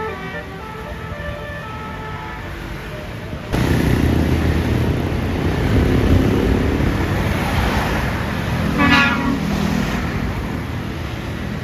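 Bus telolet horn, a multi-tone air horn, playing a stepping melody for the first few seconds. About three and a half seconds in, loud engine and road noise cuts in suddenly, and a short horn toot sounds about nine seconds in.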